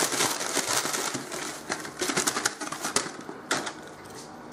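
A cat chewing cat grass: rapid crisp crunching clicks with the blades rustling, which thin out and go quieter after about three and a half seconds.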